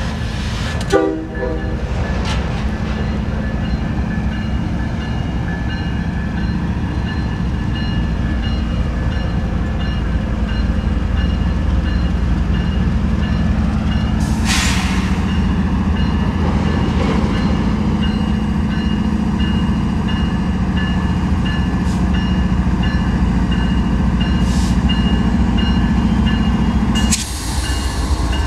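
Union Pacific diesel locomotives approaching at the head of an auto rack train, engines running with a steady drone that shifts pitch once about halfway. A bell rings steadily over it, with a brief horn note about a second in.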